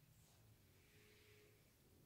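Near silence: room tone with a faint low steady hum.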